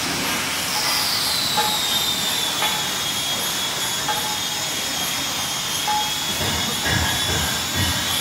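Factory machinery running: a steady hiss with a high whine that drops in pitch about a second in and then holds, and a few light clicks. Some low knocks come near the end.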